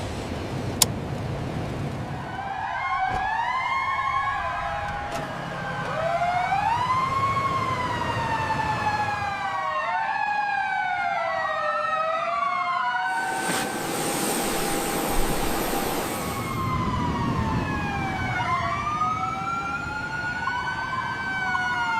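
Several emergency vehicle sirens wailing together, their pitches rising and falling and overlapping, over a steady low rumble. A burst of hiss comes in from about 13 to 16 seconds.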